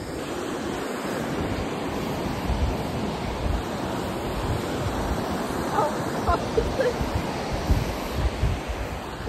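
Ocean surf washing steadily onto the shore, with gusts of wind buffeting the microphone.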